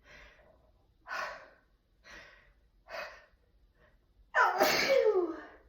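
A person's sneeze build-up: four short gasping in-breaths about a second apart, then a loud voiced sneeze a little over four seconds in, its pitch falling away.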